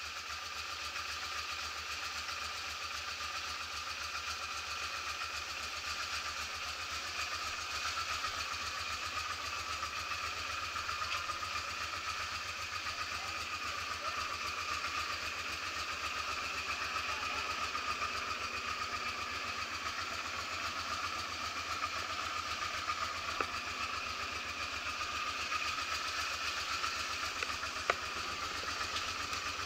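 Honda Transalp's V-twin engine idling steadily.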